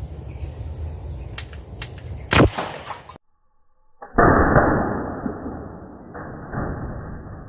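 Homemade alcohol-fuelled marble gun firing: a few light clicks, then one sharp shot about two and a half seconds in. After a brief silence comes a sudden dull bang that fades away slowly.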